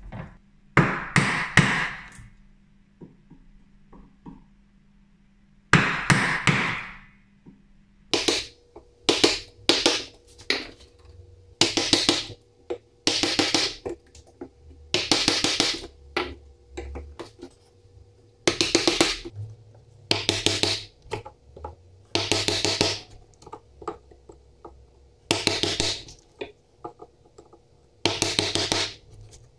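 Wooden mallet striking a chisel to chop a mortise in a beech plane body. The blows come in quick clusters of several, a cluster about every second and a half, with two longer, noisier bursts in the first quarter.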